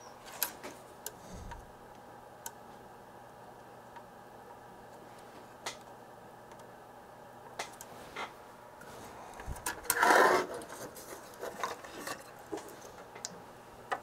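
Light scattered clicks and taps of hand tools and a soldering iron against a circuit board while capacitors are soldered in, with a louder, brief rustling scrape about ten seconds in. A faint steady hum sits underneath.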